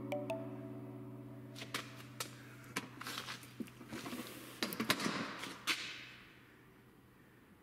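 A held music chord fading out, with scattered sharp clicks and knocks and a brief swelling whoosh in the middle.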